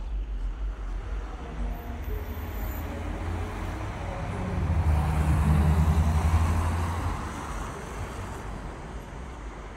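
A car driving past on the street: engine and tyre noise builds to its loudest about five to seven seconds in, then fades away, over a background of distant traffic.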